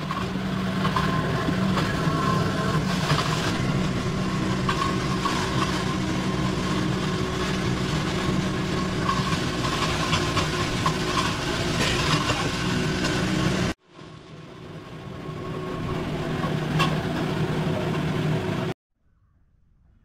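Steady mechanical drone, like an engine or motor running, with a few faint knocks over it. It cuts out suddenly about two-thirds of the way through, fades back up, and stops shortly before the end.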